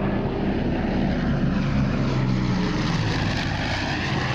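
Lockheed Constellation's four radial piston engines and propellers droning in a low flyby. The engine tone is steady and sags slightly in pitch as the airliner passes.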